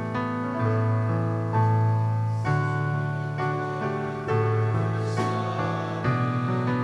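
Keyboard music: slow sustained chords and melody notes, changing about once a second.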